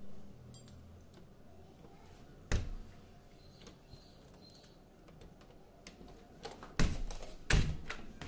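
Scattered clicks and three sharp knocks, about two and a half, just under seven, and seven and a half seconds in, over a faint background.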